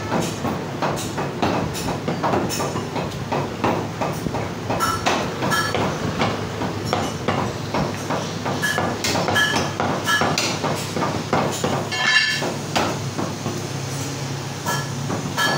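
Butchers' cleavers chopping mutton on thick wooden chopping blocks: rapid, irregular chops, several a second, from more than one block, with a short ring now and then.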